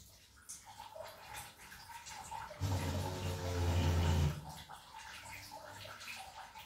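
Water running and dripping from an electric geyser being drained for an element change. About two and a half seconds in, a low buzzing hum sounds for about a second and a half.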